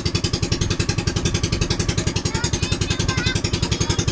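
Outrigger boat's engine running steadily at cruising speed, an unmuffled, rapid and even chugging of about a dozen beats a second.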